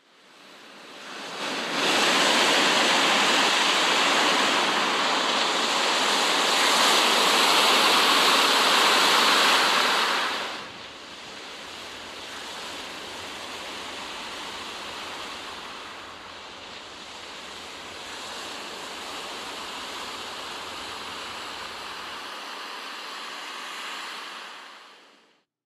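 Steady rushing of wind and rough sea at a ship's bow. It is loud for about the first ten seconds, then drops suddenly to a softer, steady rush.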